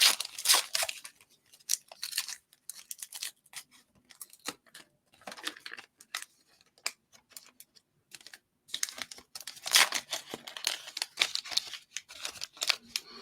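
Trading card pack wrapper being torn open and crinkled, in irregular bursts of crackling, loudest near the start and again in the last few seconds.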